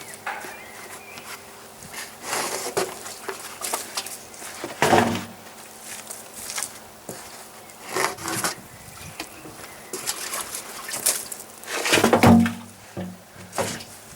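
Old car tyres being handled and loaded: irregular thuds and rubbery scrapes, about six in all at a few seconds' spacing, the heaviest about five seconds in and near the end.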